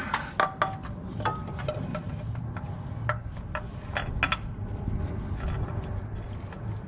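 Scattered metallic clicks and knocks, some with a brief ring, as a spin-on oil filter is handled and worked up toward its mount on the underside of a car. A low steady hum runs underneath.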